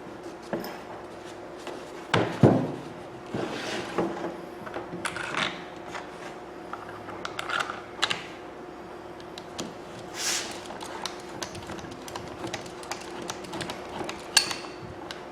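Irregular clicks and knocks of tool parts and screws being handled while a rotary hammer's handle is put back on, the loudest knock about two and a half seconds in.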